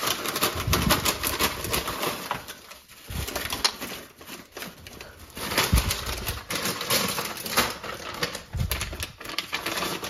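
Kitchen dishes and utensils clattering: many quick clicks and taps, with a few dull thumps.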